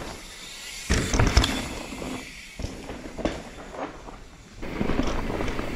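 Mountain bike riding over a dirt trail: tyre noise on loose dirt with a few sharp knocks about a second in and again around three seconds, then a louder steady rush near the end.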